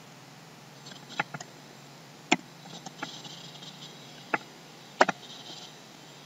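Computer keyboard being typed on: scattered, irregular key clicks, a few sharp louder strikes among fainter taps.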